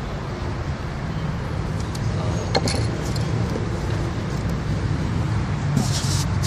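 Steady low rumble of road traffic, with a few small clicks and rustles from hands handling the fishing rig, and a brief hiss about six seconds in.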